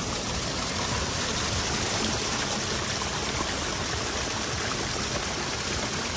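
Small creek cascading down a rocky channel: a steady rush and splash of falling water.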